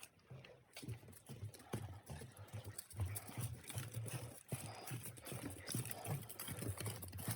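Footsteps of someone walking along a forest trail: a run of soft, irregular thuds with crackling from the ground underfoot.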